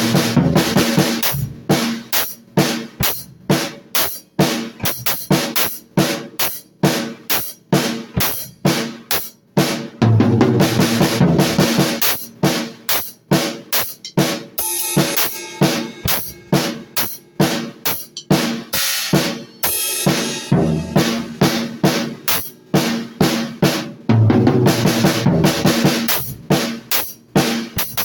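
A drum kit being played: a steady beat of bass drum and snare hits, with heavier cymbal-laden accents about a third of the way in and again near the end.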